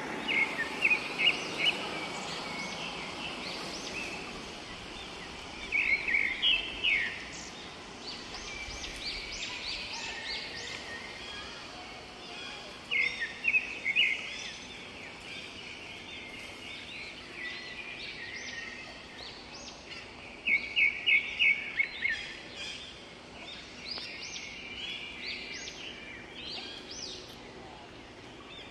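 Forest birds singing: one bird repeats a short, fast series of loud chirping notes about every seven seconds, over lighter scattered chirps from other birds.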